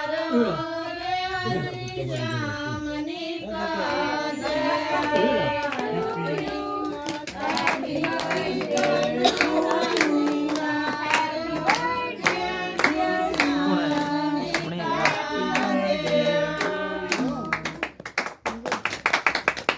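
Voices singing a song together, with hands clapping along in a steady rhythm from about a third of the way in.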